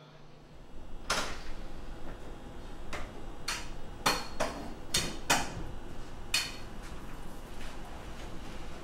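Irregular sharp knocks and clicks, about eight of them, some with a brief ring, as a person moves through a doorway on a hard floor.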